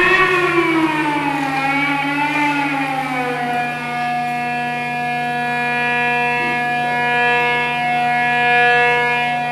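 Interactive electronic music: a wailing, siren-like tone rich in overtones glides slowly up and down, then about three and a half seconds in settles into a steady held chord over a constant low hum.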